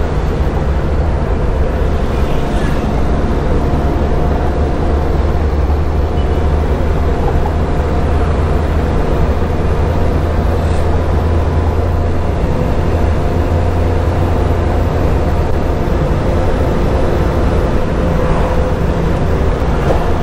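A vehicle's engine running steadily at cruising speed, a constant low hum with road noise.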